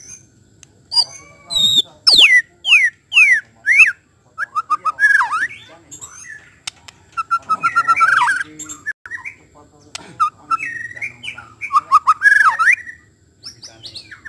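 White-rumped shama singing: a run of four quick falling whistles about two seconds in, then bursts of fast, varied warbling phrases.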